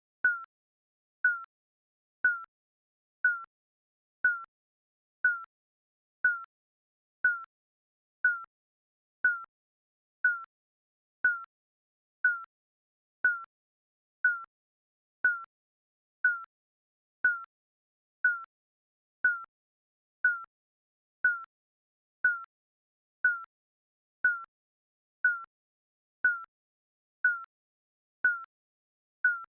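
Digital countdown timer beeping once a second: a short, single high-pitched electronic beep each second, with silence between beeps.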